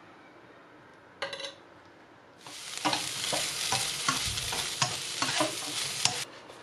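Fried tofu cubes with diced pork and onion sizzling in a hot frying pan, tossed with chopsticks that click and scrape against the pan, starting about two and a half seconds in and stopping suddenly near the end.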